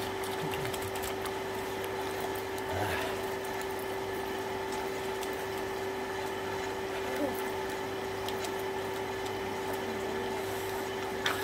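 Water pump motor humming steadily, with spraying water hissing and splashing down over a bather.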